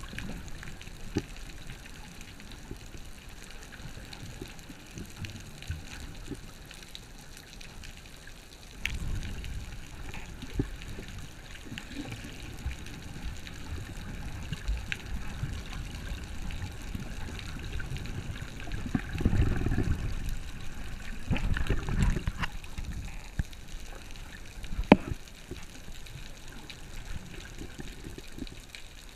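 Underwater recording: muffled water sloshing and a low rumble from the swimmer's movement, swelling louder a few times, with scattered small clicks and one sharp click near the end.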